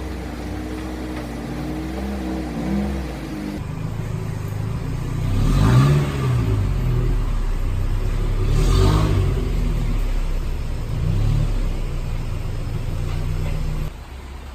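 Car engine revving up and down over and over, its pitch rising and falling. The two strongest revs come about six and nine seconds in, and the engine sound drops away near the end.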